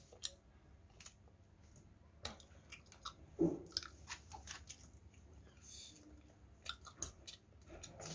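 A person chewing a chocolate bar with the mouth closed: faint, scattered wet smacks and small clicks, with a slightly louder smack about three and a half seconds in.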